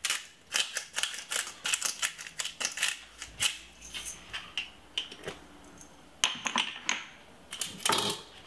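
Pepper mill grinding pepper over the dish in quick crunching clicks. The clicks are dense for the first few seconds, then come again in short spurts.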